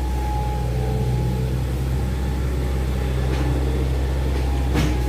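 Excavator's diesel engine running steadily with a low hum, with a short clank about a second before the end.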